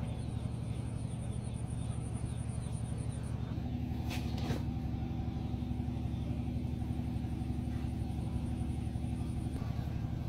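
A steady low rumble, with two short clicks about four seconds in.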